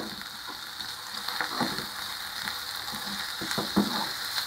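Carrot, mushrooms, ginger and garlic sizzling steadily in hot oil in a nonstick frying pan. A wooden spatula scrapes and knocks against the pan several times as they are stir-fried.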